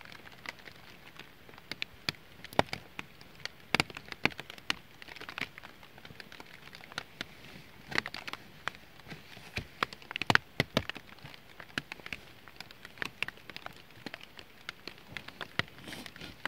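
A small twig fire crackling in light rain: many irregular, sharp crackles and ticks over a faint, steady hiss.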